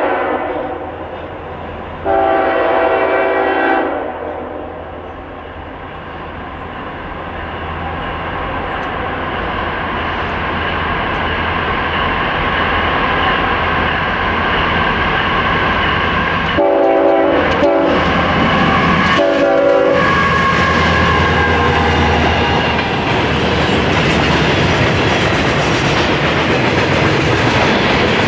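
Approaching diesel-hauled freight train sounding its multi-note air horn: two long blasts in the first few seconds and a few shorter ones about two-thirds of the way through. The locomotives' engines and wheel noise grow steadily louder as the train nears, and the passing freight cars clatter over the rail joints near the end.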